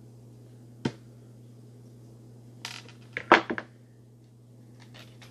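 A hex driver and needle-nose pliers clicking against a small metal screw and link on a plastic RC crawler chassis as an upper-link screw is worked loose. One sharp click comes about a second in, then a quick cluster of clinks and knocks around the middle, with a few faint ticks near the end, over a steady low hum.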